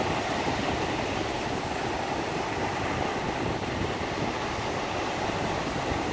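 Black Sea surf: small waves breaking and washing up a sandy beach in a steady, unbroken rush, with wind rumbling on the microphone.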